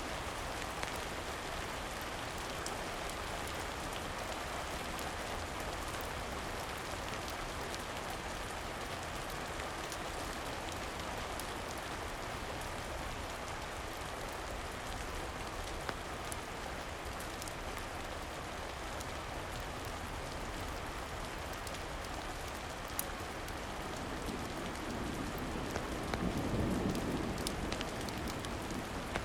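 Steady rain, with scattered faint crackles and a low rumble that swells about three-quarters of the way through.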